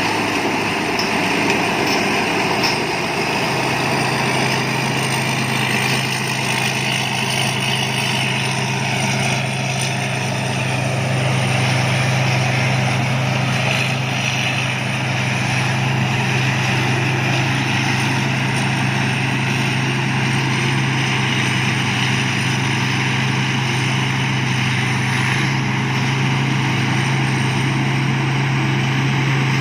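Thai Seng Yont rice combine harvester running steadily while harvesting: a constant engine drone over a broad mechanical rushing noise, with the engine note firming slightly a few seconds in.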